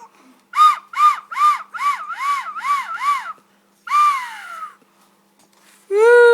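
A quick run of crow-like caws, about three a second, then one longer caw falling in pitch. Near the end an infant starts to cry loudly.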